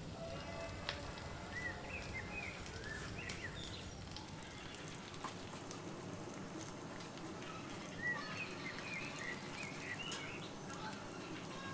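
Potato pops deep-frying in a pot of oil: a steady sizzle with many small crackles. Short bird-like chirps come in two spells, about two seconds in and again around eight seconds in.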